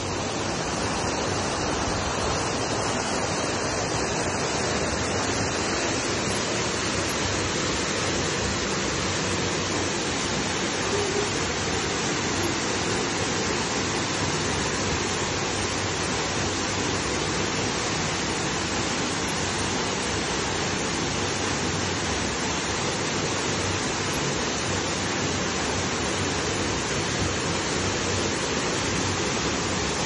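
Tall, thin waterfall dropping from a cliff into a shallow pool: a steady, even rush of water.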